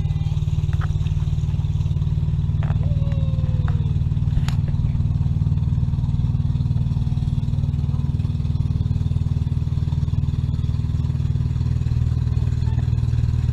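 Engine of a wooden outrigger motorboat (bangka) running steadily underway, a loud, even low drone that doesn't let up.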